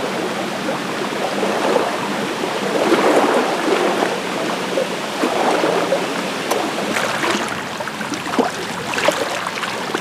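Small lake waves washing and lapping over a pebble-and-shell shoreline, a continuous rushing wash. A few light clicks come through in the second half.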